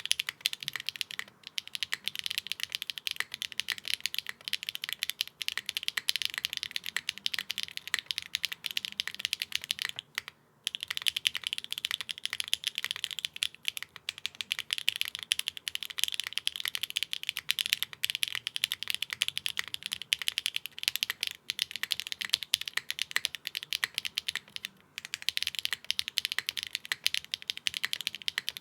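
Fast continuous typing on a custom 65% mechanical keyboard fitted with clacky enthusiast switches, a steady stream of sharp, high-pitched key clacks. It breaks off briefly about ten seconds in and again about twenty-five seconds in.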